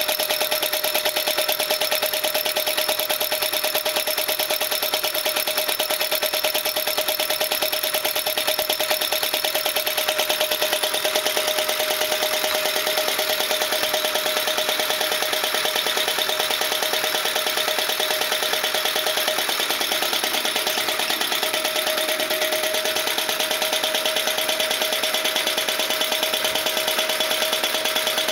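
Homemade Stirling engine running steadily under an alcohol burner's heat: its copper-pipe piston and linkage make a rapid, even clatter as the heavy iron flywheel turns, with a steady high tone under it.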